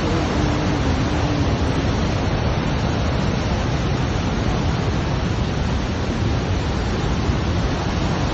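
Murchison Falls, the Nile plunging through its narrow gorge: a loud, steady rush of falling water.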